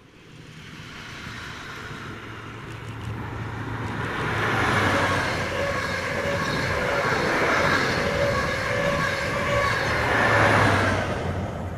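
High Speed Train with Class 43 diesel power cars passing at speed. It grows steadily louder as it approaches, then the coaches' wheels run by on the rails in a loud, steady rush over a low engine hum. It is loudest as the rear power car goes past near the end, then drops off quickly.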